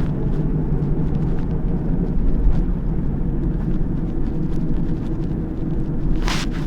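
City bus engine running steadily: a low, even rumble with a steady hum.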